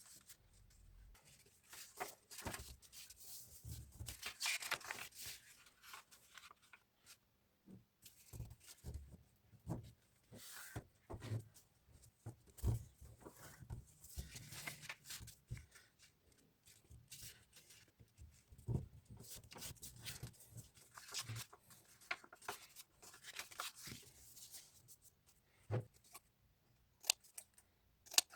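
Paper being cut and handled: irregular scissor snips and rustling of paper, with scattered light clicks and taps.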